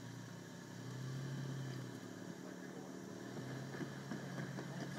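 Toyota FJ Cruiser's engine running at low revs while rock crawling, swelling briefly about a second in, with scattered clicks and knocks in the last couple of seconds.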